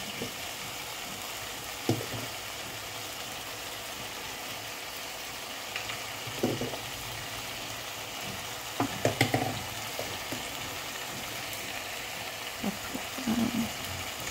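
Steady sizzling hiss from a pot of beans cooking on a gas stove, with a few light knocks and taps as spices are shaken in from a shaker, a cluster of them about nine seconds in.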